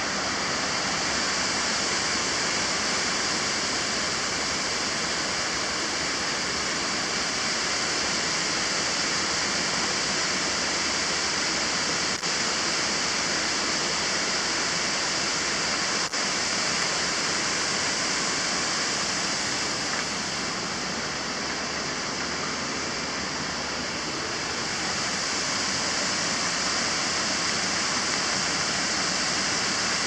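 Mountain waterfall rushing steadily onto rocks, with two brief clicks about twelve and sixteen seconds in.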